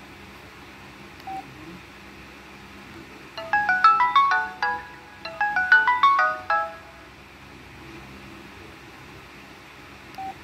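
Samsung Contour 2 cell phone playing a ringtone through its small speaker: a quick phrase of bright melodic notes, heard twice in a row a few seconds in. A single short beep sounds about a second in and again near the end.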